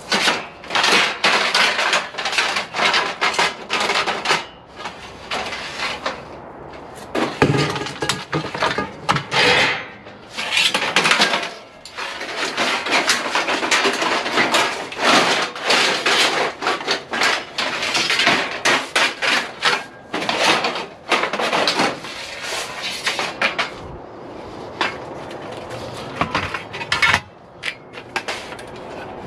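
Long lengths of extruded 6063 aluminum clanking and rattling against one another as they are pulled from a pile and handled, a dense run of metallic knocks with a few short pauses.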